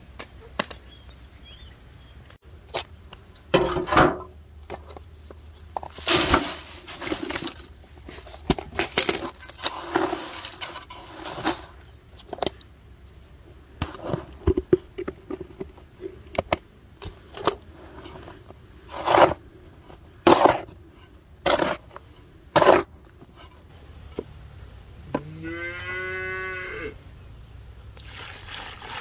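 Metal scoop digging into a heap of crushed stone and tipping it into a galvanised bucket: a string of gritty scrapes and rattling pours at uneven intervals. Near the end one drawn-out animal call sounds once, bending in pitch.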